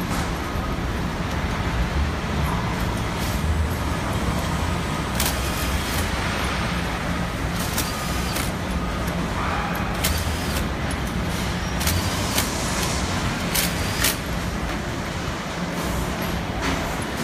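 Truck assembly-plant floor noise: a steady low rumble of machinery with scattered sharp clanks and knocks, more frequent in the second half.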